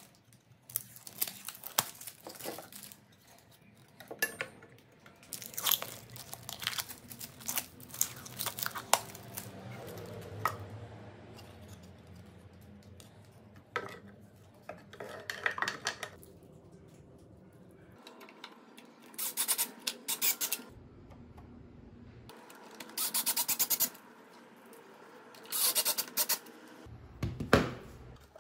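Hands working small parts into a plywood box: intermittent rustling, scraping and clicking in short bursts, with the louder bursts in the second half.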